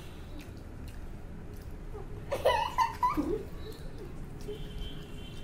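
A girl giggling briefly about two and a half seconds in, over low room noise with a few faint clicks.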